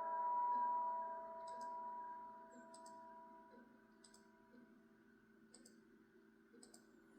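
Bell-like chime tones ringing out and fading away over the first few seconds, then faint sharp clicks about every second and a half.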